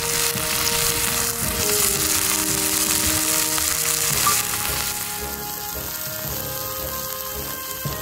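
Pork belly sizzling as it grills over a campfire, a dense steady hiss. About four seconds in the sizzle drops away sharply, leaving background music.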